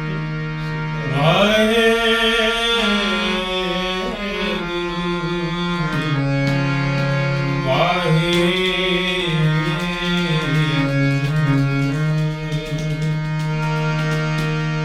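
Gurbani kirtan music: a steady held drone under two long melodic phrases, the first coming in about a second in and the second near eight seconds, with light tabla strokes.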